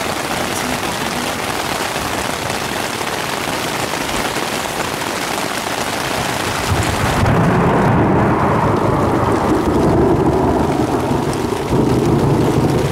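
Steady heavy rain, then about halfway through a long low rumble of thunder rolls in and keeps going, louder than the rain.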